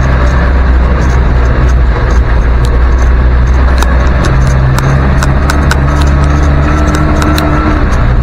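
1971 Land Rover Series 2a Marshall ambulance driving, heard loud from inside the cab: a steady engine and drivetrain drone, with frequent small rattles and clicks. A thin whine comes in about halfway through.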